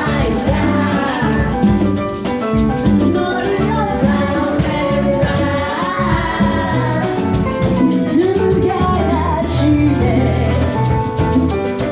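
Live salsa band playing, with a singer's voice over the band.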